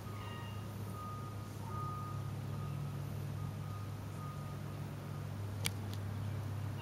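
Steady low hum of an engine running, with a thin high whine that comes and goes and a single sharp click near the end.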